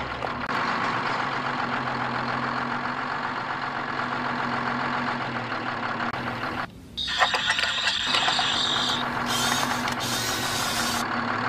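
A mini tractor's motor running steadily with a low, even hum. It drops out briefly about seven seconds in, then comes back with a high hiss added over it.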